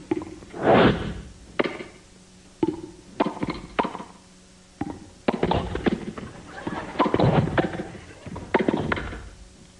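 Mouth-made sound effects: a string of sharp pops and knocks broken by short hissing, crackling bursts, irregularly spaced.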